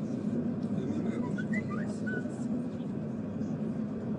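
Tram running: a steady low rumble of the ride with indistinct voices in the background, and a few short high chirps about a second in.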